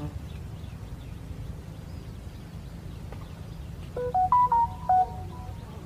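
A short electronic melody of a few steady notes that jump abruptly in pitch, like a phone ringtone or notification, about four seconds in, over a low steady rumble.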